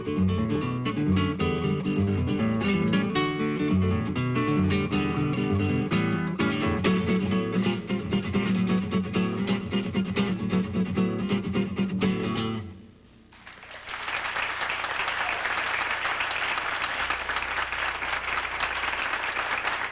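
Classical guitar played in quick plucked runs, ending a piece about two-thirds of the way through; after a brief hush an audience applauds steadily.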